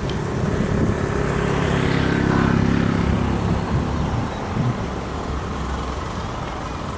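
An engine running over a low steady rumble; its pitched drone swells about two seconds in and fades away by about four and a half seconds.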